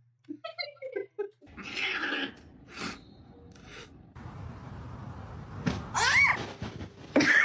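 A domestic cat meowing: short calls in the first second, a drawn-out meow that rises and falls about six seconds in, and a louder cry near the end, with a few knocks in between.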